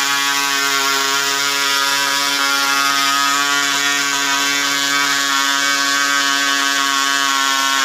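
Model airplane diesel (compression-ignition) engine on a bench test stand, running steadily at constant speed, a buzz that holds one pitch.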